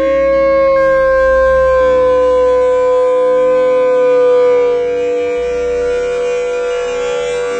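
One version of the 'hüüüü' meme sound effect: a single long, steady siren-like drone with overtones, sagging slightly in pitch, over a low hum.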